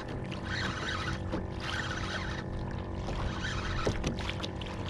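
Steady rush and swish of water along a kayak hull as a hooked lemon shark tows the kayak, with a few faint knocks.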